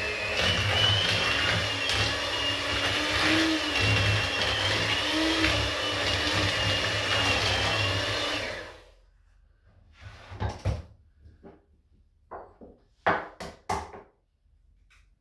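Electric hand mixer running steadily with a motor whine, its beaters working an egg into brownie batter in a plastic bowl, switched off about nine seconds in. A few sharp taps and knocks follow as the next egg is cracked on the rim of a small glass bowl.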